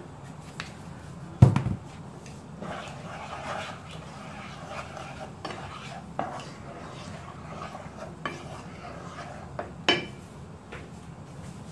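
Wooden spatula stirring thick tomato sauce in a frying pan, scraping over the pan's bottom, with a sharp knock about a second and a half in and another near the end.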